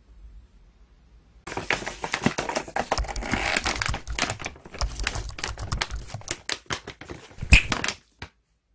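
A stand-up pouch of dog treats being handled and opened, its stiff packaging crinkling and crackling in quick irregular clicks. It starts about a second and a half in, has a sharp click near the end, and stops.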